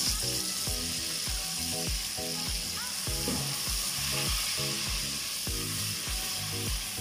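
Mash daal with tomato paste sizzling in a pot as it is stirred with a slotted spoon, a steady hiss. Background music with a steady beat plays over it.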